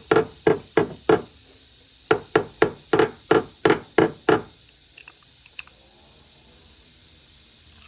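Rapid hammer taps on a dented car body panel, about three a second: four strikes, a short pause, then eight more. Each tap rings briefly. The taps stop about four seconds in.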